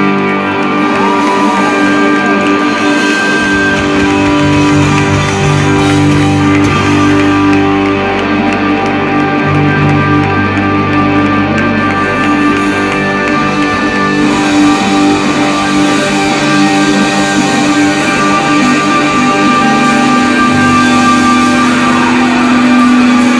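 Live rock band playing loudly, recorded from within the crowd, dominated by long sustained electric guitar chords over bass. The low bass notes change a few times.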